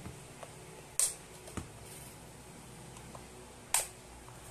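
Sharp plastic clicks as the plastic housing of a JBL Flip 5 speaker is pried apart with a plastic pry tool: two loud snaps, about a second in and near the end, with a fainter click in between.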